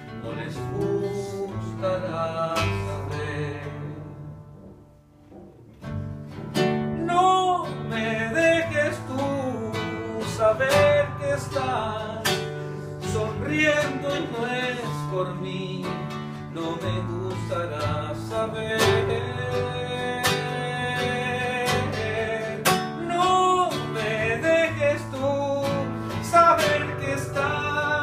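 Live band playing an instrumental passage of a song, led by guitar over a steady bass line. The music thins out almost to nothing about five seconds in, then comes back in at full level.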